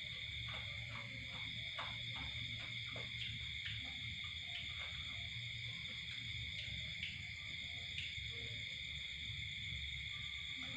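Night insects chirring in a steady, high-pitched chorus, with a few faint soft clicks in the first few seconds.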